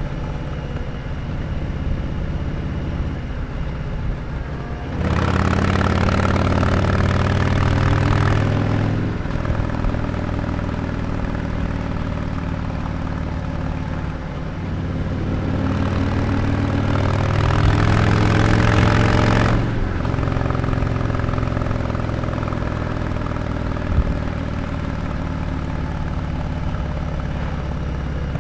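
2020 Harley-Davidson Sport Glide's Milwaukee-Eight 107 V-twin running through a Jekill & Hyde exhaust on the move. It cruises steadily, then about five seconds in gets suddenly louder under throttle and drops back in pitch a few seconds later. It swells again, rising in pitch, from about fifteen seconds in and cuts back sharply near twenty seconds.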